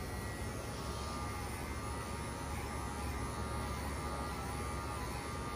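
Cordless dog-grooming clippers fitted with a #40 blade running with a steady electric buzz as they clip the hair on a Beagle's flank.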